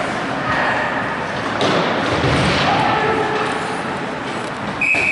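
Ice hockey play in an arena: thuds of players and the puck hitting the boards, with scattered voices from the spectators. Near the end a sharp hit is followed by a steady high-pitched tone.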